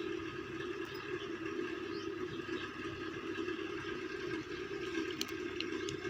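A steady droning hum that holds unchanged throughout, with a couple of faint clicks near the end.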